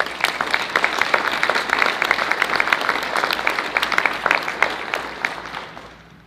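Audience applauding after the last guest is announced, a dense patter of hand claps that thins and fades out in the last second or so.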